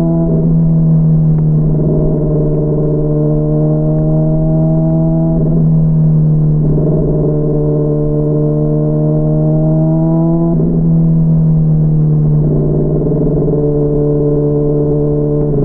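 Honda CBR600RR's inline-four engine under way, its pitch climbing slowly and then dropping sharply several times, as with gear changes. It is heard muffled from inside the rider's backpack.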